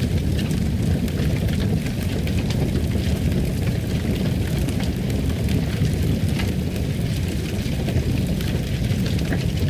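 Fire burning in a fireplace: a steady low rumble with frequent small crackles and pops.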